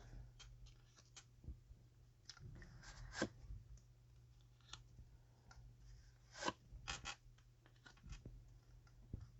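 Faint, scattered clicks and light scraping of tarot cards being handled and turned over on a table, over a steady low hum.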